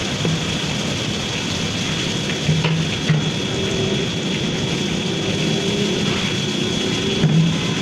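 Reverse-osmosis plant running, a steady mechanical hum with a constant high whine, with a few short knocks.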